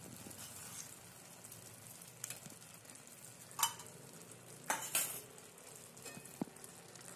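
Carrot halwa cooking in ghee in a pan over a low gas flame, with a faint steady sizzle. A few sharp clicks come about three and a half and five seconds in.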